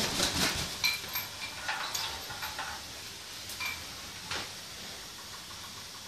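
Shower spray hissing steadily over wet parrots, with scattered clicks and a few short high squeaks in the first three seconds, then an even hiss.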